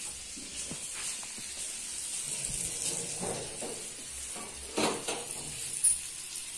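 Eggplant slices for baingan bhaji sizzling as they shallow-fry in pans on a gas stove, a steady hiss, with a short knock about five seconds in.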